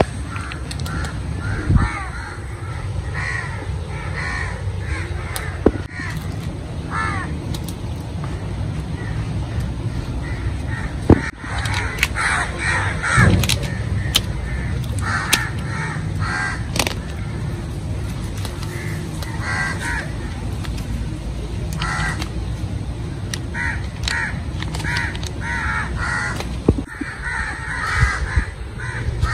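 Bird calls in short runs of repeated notes, recurring every few seconds over a steady low background noise, with a few sharp knocks in the middle.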